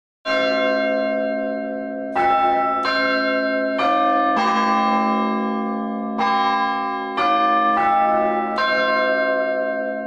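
Bronze church bells in a tower, rung one after another, about nine strokes at an uneven pace, each note ringing on and overlapping the next.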